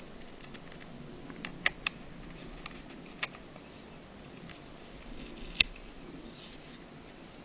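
Small sharp clicks of a precision screwdriver and tiny screws against an iPhone 5's internal parts as the screws are driven in. There are about five clicks, three close together in the second second and the loudest a little over five seconds in, with faint handling in between.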